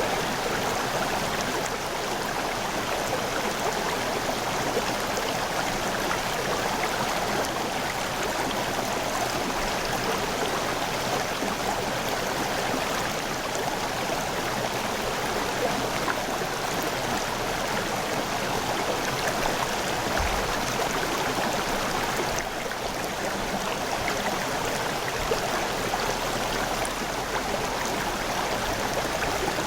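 River water rushing and gurgling over rocks, a steady even flow. A brief low thump about two-thirds of the way through.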